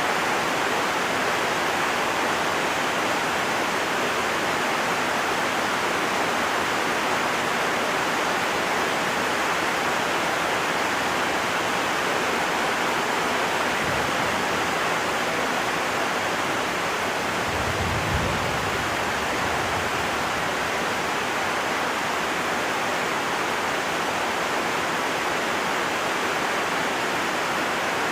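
Heavy rain falling steadily, a dense even hiss. A brief low rumble comes about two-thirds of the way through.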